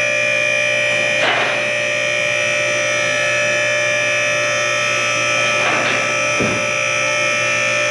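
Electric hydraulic power unit of a four-post car lift running with a steady whine as it raises a car, with three short clacks over it.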